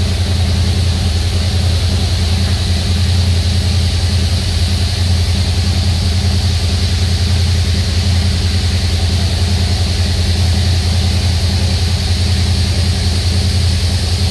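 Touchless automatic car wash running: a steady machine hum under the even hiss of high-pressure water spraying over a side-by-side UTV.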